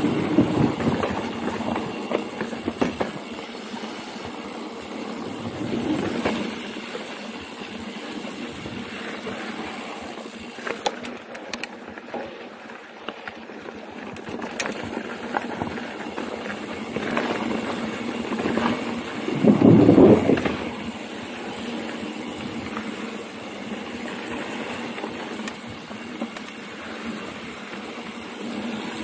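Mountain bike riding over a dirt trail: steady tyre and ride noise with scattered rattles and knocks from the bike, and a louder rush of noise about two-thirds of the way through.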